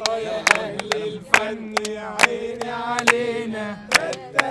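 A group of people singing together, with hand claps keeping a steady beat of about two a second.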